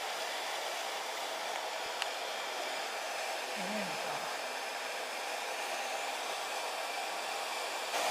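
Steady rushing-air noise from a blower-type machine running continuously, with one faint click about two seconds in.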